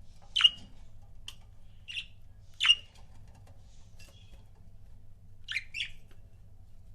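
Pet budgerigars giving short, sharp calls, about seven scattered ones with gaps between, the loudest about half a second in and a little before three seconds in. A faint steady low hum lies underneath.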